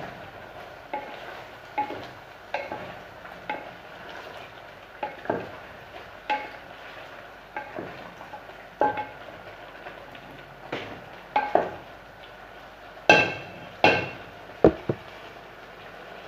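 A utensil clinking and scraping against a pan as cooked chicken adobo is stirred, in irregular knocks about once a second, over a low steady sizzle.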